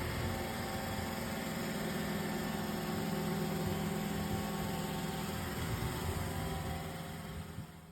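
Roomba i2 robot vacuum running: a steady motor hum and whir, fading out near the end.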